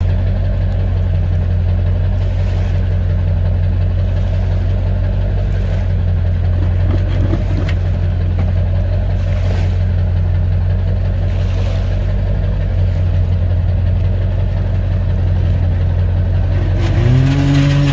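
An engine idling steadily, revving up briefly near the end.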